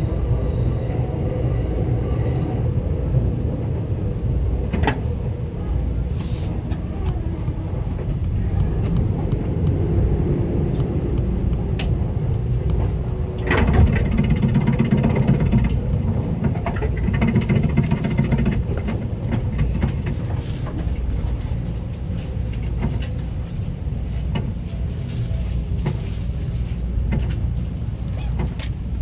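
Interior of a Seibu 10000 series electric train car standing at a platform after arrival: a steady low hum from the car's equipment, with scattered clicks and knocks and a louder rumbling stretch about halfway through.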